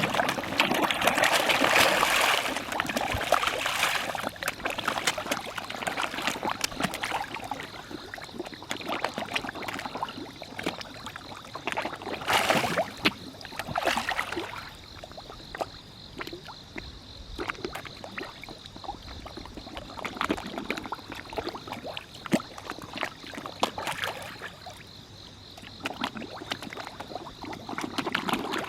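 Many koi splashing at the water surface as they feed, a continuous patter of small splashes. The splashing is heaviest for the first few seconds, with two more loud bursts about halfway through.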